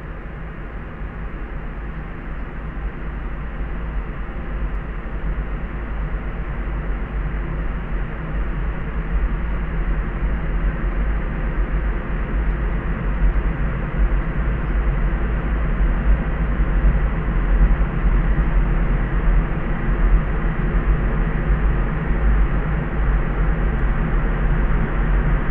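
Layered sleep noise: a steady, muffled hiss weighted heavily toward the deep bass, with nothing in the highs. It grows slowly louder over the first half and then holds steady.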